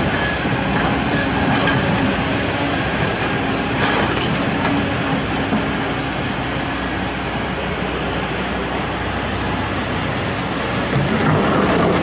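Kobelco SK200 hydraulic excavator's diesel engine running under load as the bucket works among rocks in the river. There is a dense rumble with stones clacking about four seconds in, and a swell of noise near the end as the bucket moves through the water.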